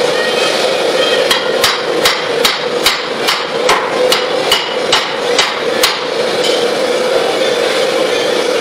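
Hand hammer forging a red-hot steel bar on a steel block anvil: about a dozen sharp metal-on-metal strikes at roughly two and a half a second, stopping about six seconds in. A steady rushing noise runs underneath.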